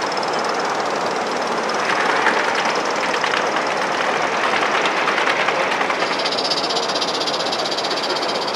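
Gauge 1 live steam model locomotives running past on the track, with rapid fine chuffing and wheel clicks over the rail joints, busiest from about two to six seconds in, then a steady hiss.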